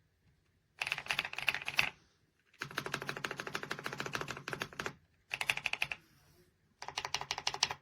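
AJAZZ x Attack Shark X85 gasket-mount mechanical keyboard being typed on quickly, in four bursts of rapid keystrokes separated by short pauses, the second and longest lasting over two seconds.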